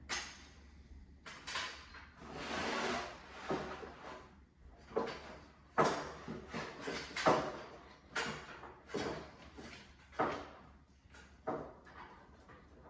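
Roller stands being lifted and set up: a run of sliding scrapes and clunks, with sharper knocks about six and seven seconds in.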